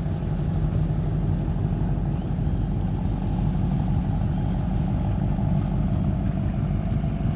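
A vehicle engine running steadily: an even, low drone with no change in pitch.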